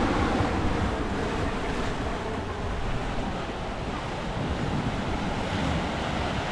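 Surf washing onto a sandy beach, a steady rushing of water, with wind buffeting the microphone.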